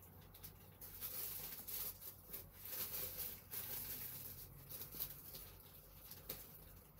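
Faint, irregular rustling and scraping of objects being handled, with no steady tone.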